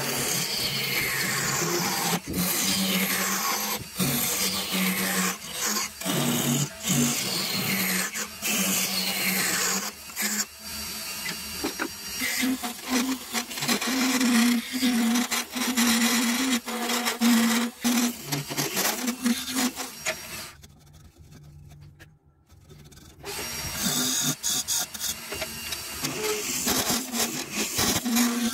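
Wood lathe running while a turning tool hollows the inside of a spinning wooden pot: a harsh scraping hiss of the cutting edge on the wood over the motor's steady hum, in repeated cuts with short breaks. About twenty seconds in, the cutting stops for a couple of seconds and then starts again.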